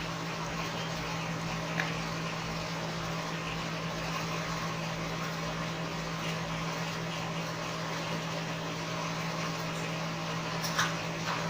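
Steady background hum with a constant low tone and hiss, broken by a faint click about two seconds in and a sharper one near the end.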